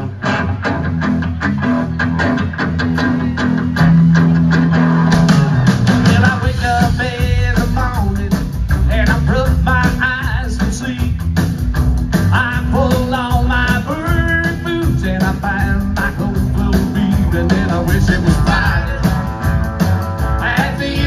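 A live rock-and-roll band playing: electric guitars over a drum kit and bass. The music gets louder about four seconds in, and a lead guitar line runs over the rhythm after that.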